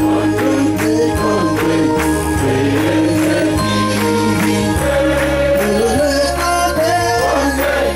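Gospel music: a choir singing over a steady percussion beat and a bass line that moves from note to note.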